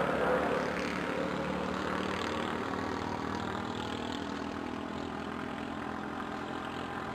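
Motor vehicle engine running with a steady low hum, loudest at the start and slowly fading.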